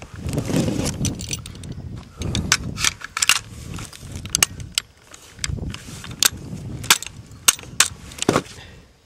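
Gloved hands working on a disassembled rifle: a string of sharp metal clicks and rattles as parts are handled and fitted together, over dull knocks and rubbing of the gun being moved.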